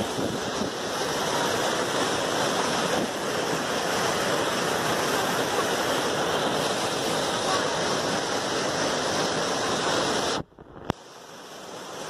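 Steady rushing of a swollen, muddy river in flood as it surges over an obstruction in breaking standing waves. Near the end the sound cuts out suddenly, gives a single click and comes back quieter, building again.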